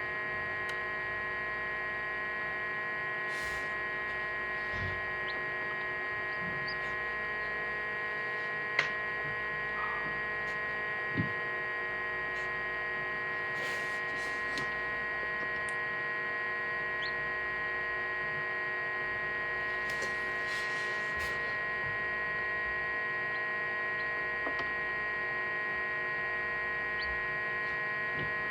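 Egg incubator's steady electrical hum with a faint whine, broken by a couple of soft clicks partway through.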